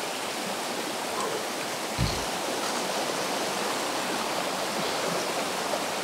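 Mountain river water rushing steadily over rocks, with one dull low thump about two seconds in.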